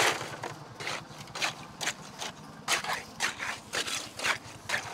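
Wet concrete slides from a pan into a wooden beam form, then a piece of wood scrapes and pushes the concrete through the rebar in short, irregular strokes, about two or three a second.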